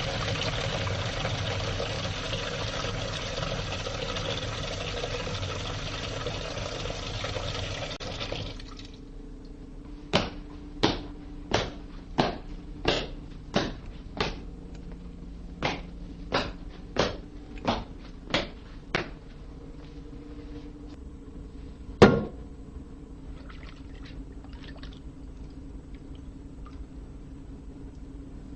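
Rushing water, like a flush or a pour, that cuts off abruptly after about nine seconds. It is followed by a string of about a dozen sharp taps, roughly every two-thirds of a second, and then one louder sharp knock.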